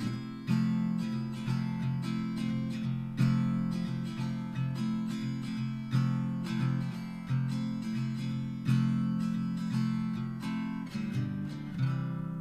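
Background music: acoustic guitar strummed and picked, its notes ringing out, with a last chord fading near the end.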